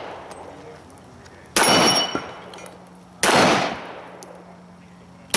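Semi-automatic pistol firing: two shots about a second and a half apart and a third right at the end, each with a short fading echo. The first is followed by a brief high ring.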